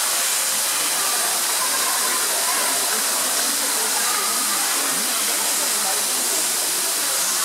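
Steady rushing hiss of running water, with faint voices murmuring underneath.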